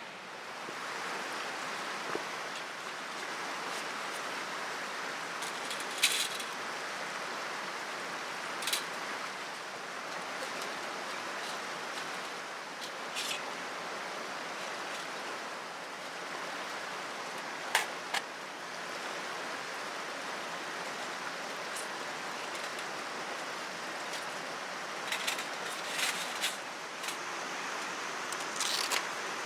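A mountain stream rushing steadily, with a few sharp clicks and knocks over it that come more often near the end.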